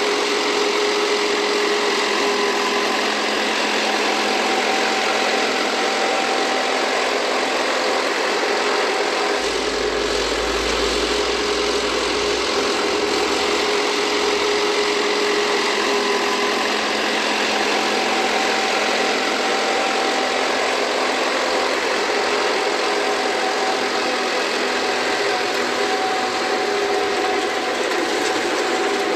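Mechanized harvesting machinery running steadily, its engine and working parts giving a continuous hum with a faint steady whine.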